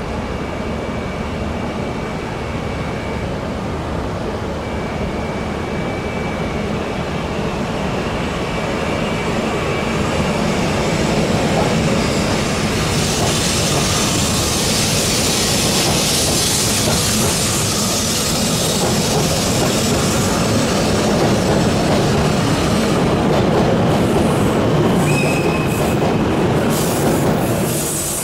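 An E6 series Shinkansen train pulling out of a station platform, gathering speed as its cars roll past. The running noise of wheels and train grows louder about ten seconds in, then drops as the last car goes by at the end.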